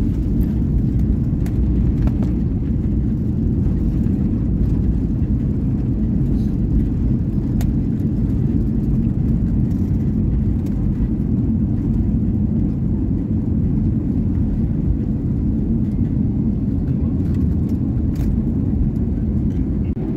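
Steady low rumble heard from inside an airliner's cabin as the plane rolls out along the runway just after touchdown: engine and wheel noise.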